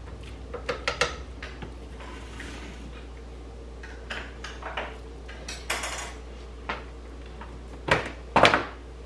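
Wooden spoon scooping and scraping in a stainless steel Instant Pot inner pot and a slow cooker, with scattered clinks and knocks against the pot rims; the loudest knocks come near the end.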